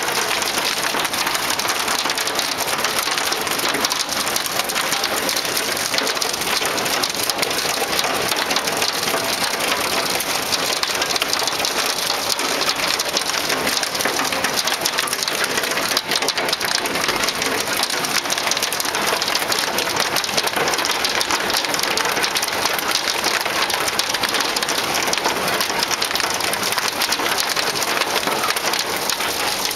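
Hail and heavy rain pelting down, a dense, steady clatter of countless small impacts with no let-up.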